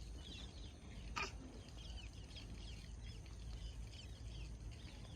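Faint chirping of small birds, many short calls repeating, with one brief sharp sound about a second in.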